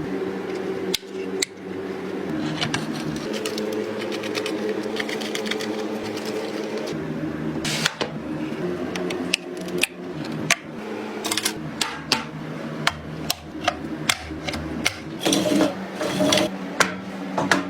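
A steady small-motor hum with a few clicks, then a run of sharp clicks and knocks through the second half, like computer parts being handled and fitted together.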